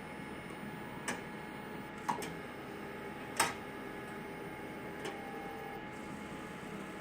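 Four irregularly spaced sharp clicks from an XR-640, the third the loudest, over a steady background hum. This is the clicking noise that has returned after the unit's repair.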